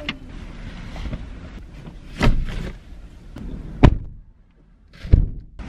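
Boxes and bags being shifted about in a packed car, heard from inside the cabin, with several sharp thumps, the loudest about four seconds in.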